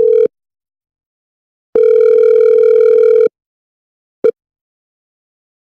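Telephone ringing tone heard on the line by a caller: a steady buzzing tone that stops just after the start, sounds again for about a second and a half, then gives one short blip about four seconds in.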